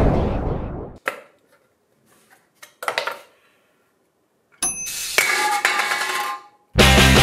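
Edited-in comic sound effects: a crash ringing away, a few faint clicks, then a bright chiming effect lasting about two seconds. Loud rock music cuts in near the end.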